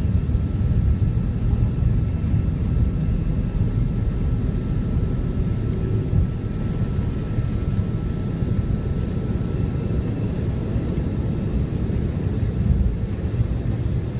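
McDonnell Douglas MD-88's rear-mounted Pratt & Whitney JT8D engines at takeoff thrust, heard inside the cabin: a steady low roar with two thin steady whines above it. The jet accelerates down the runway and climbs out.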